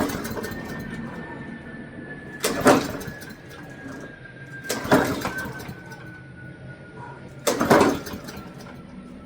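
Lawn mower's recoil starter pulled over and over, about every two and a half seconds, four pulls in all, with the engine cranking briefly each time but not catching.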